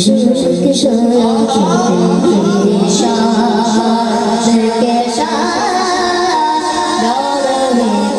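A boy's high voice singing a naat unaccompanied through a microphone and sound system, in long ornamented melodic phrases over a steady low drone.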